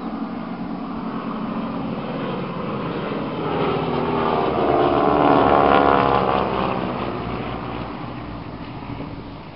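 Two North American T-6 Texan trainers passing overhead, their Pratt & Whitney R-1340 radial engines and propellers droning. The sound swells to loudest about halfway through, then fades as they go away.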